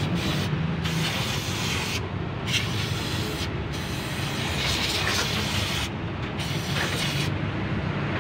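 Repeated bursts of hissing spray, five or so, each about a second long, as the fuel pump's filter housing is cleaned of dirt and sand. A low steady hum runs underneath.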